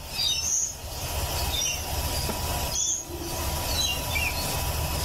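Cooling fans of a freshly powered-on Sooway SW200 3D printer running with a steady hiss and a thin, steady high whine. Parrots chirp now and then in the background.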